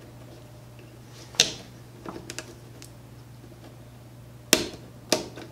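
Sharp plastic clicks as the Bowden tube and cable are snapped into the retaining clips on the back of an Ultimaker 2+ 3D printer: three loud clicks, the first about a second in and two close together near the end, with a few lighter taps between. A low steady hum runs underneath.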